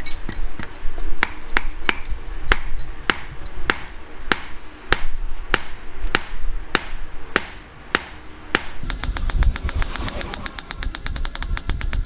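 Hand hammer striking a hot steel knife blade on a steel anvil block, roughly two blows a second, each with a bright metallic ring. About three-quarters of the way in, the separate blows give way to a fast, even knocking, about ten a second.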